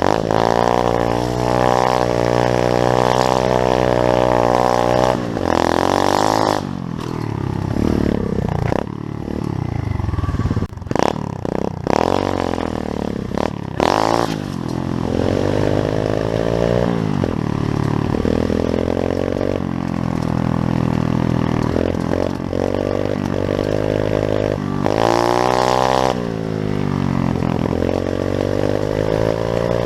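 Pit bike engine running and revving: held at steady revs for stretches, with the pitch falling and rising as the throttle is worked, mostly through the middle and again near the end, and a few sharp knocks in the middle.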